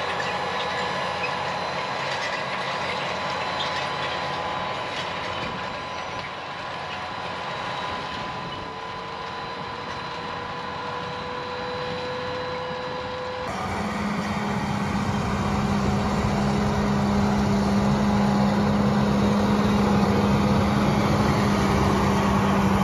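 John Deere tractor pulling a corn planter across a field, its engine running steadily under load with a few steady whining tones. About halfway through, the sound jumps louder and deeper as the tractor is heard close by.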